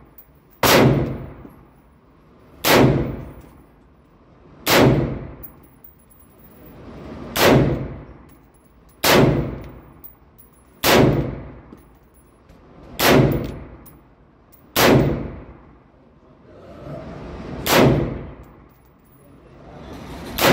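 AR-15 rifle in 5.56 fired as slow, deliberate single shots, about ten in all, roughly two seconds apart. Each sharp report rings and decays in the enclosed range booth.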